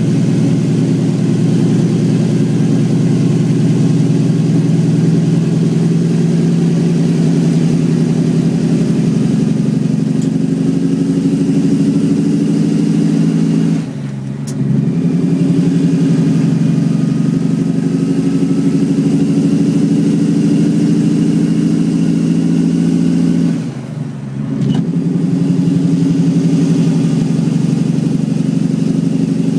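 Western Star truck's Cummins ISX diesel on the Jacobs engine brake, loud and steady. The engine brake cuts out briefly twice, about halfway through and again some ten seconds later, as the gears change.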